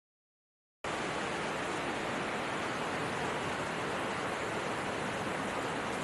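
Steady, even rushing hiss that starts suddenly out of silence about a second in and holds at one level.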